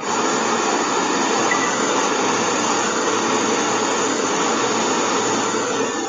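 Handheld gas blowtorch flame burning with a steady hiss as it heats a metal strip to melt the solder placed on the joint, fading out at the very end.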